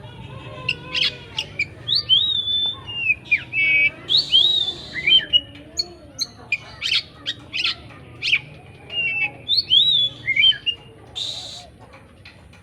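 Oriental magpie-robin singing: a busy run of sharp chirps and short whistles that glide up and down. Two harsh, raspy notes come about four and eleven seconds in.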